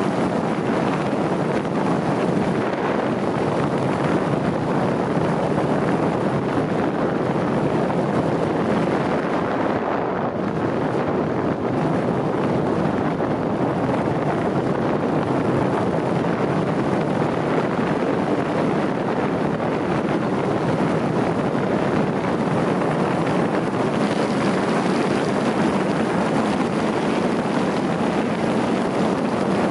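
Steady rush of wind buffeting the microphone, mixed with tyre and road noise from a vehicle driving at speed on track asphalt; no distinct engine note stands out.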